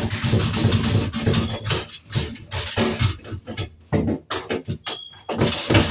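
Pliers wrenching at a stuck screw in a sheet-metal fluorescent light fixture: irregular scraping, clicking and rattling of metal.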